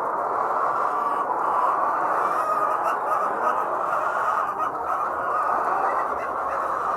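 A large flock of layer hens in a poultry shed, many birds clucking at once in a steady, unbroken din.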